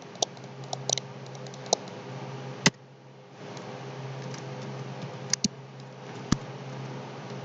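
Scattered sharp clicks of computer keyboard keys and a mouse, the loudest about two and a half seconds in, over a steady low hum.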